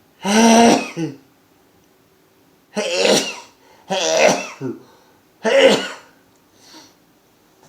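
A man sneezing four times in a row, loud sneezes with a voiced cry to them, each lasting under a second and coming about a second to two seconds apart.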